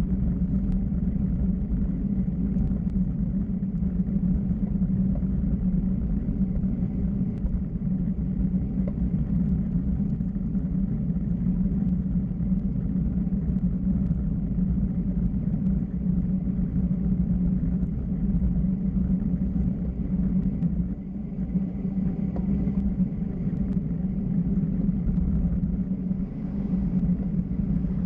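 Steady rumble of wind and road noise from travelling downhill at speed, even throughout with a strong low hum.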